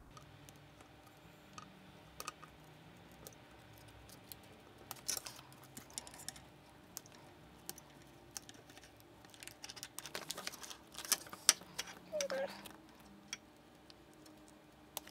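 Small curved embroidery scissors snipping felt and vinyl close to the stitching in an embroidery hoop: scattered light clicks, coming in a quicker run about two-thirds of the way through.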